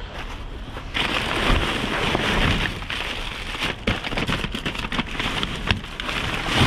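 Loud rustling and crackling of plastic bags and rubbish being handled in a dumpster, starting about a second in, with scattered knocks.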